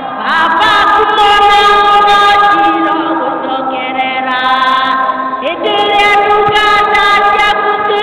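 Two women singing a worship song into handheld microphones, with long held notes.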